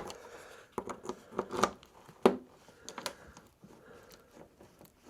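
About half a dozen light clicks and knocks as the handlebars of a BMW R1200GS are swung lock to lock to check the cable routing, with plastic parts being handled.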